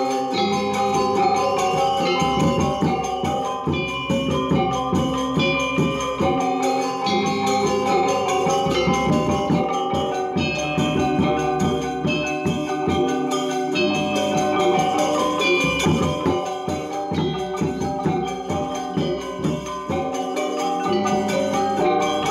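Balinese gamelan ensemble playing: struck metallophones ringing in dense, fast patterns over percussion.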